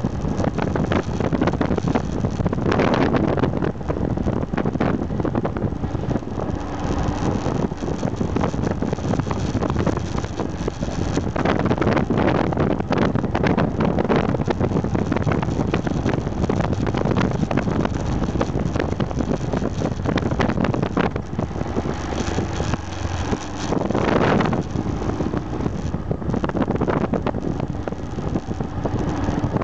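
Aprilia Pegaso 650 Strada's single-cylinder engine running at road speed through bends, mixed with heavy wind buffeting on the microphone. A few louder swells come and go.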